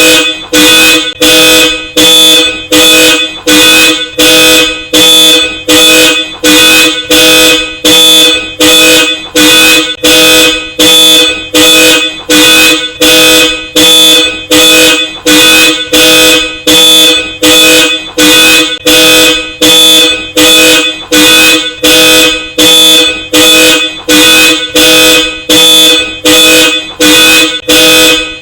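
Hella Supertone dual-tone car horn honking over and over in an even car-alarm rhythm, a little over one honk a second, each honk loud and steady in pitch.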